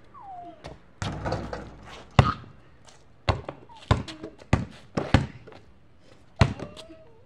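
A basketball bouncing on pavement: about six sharp thuds, most around half a second apart. A short falling squeak comes just before them, near the start.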